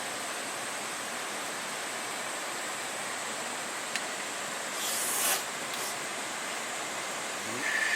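Steady rushing background noise like running water, with a single click about four seconds in and a short hiss about five seconds in.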